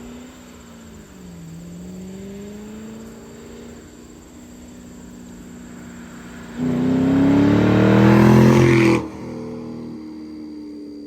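2006 Mustang GT's 4.6-litre V8 through a Corsa Extreme axle-back exhaust, running at light throttle. About six and a half seconds in it turns suddenly much louder as it is floored, and the revs climb for a couple of seconds. The throttle is then lifted and it drops back to a quieter drone.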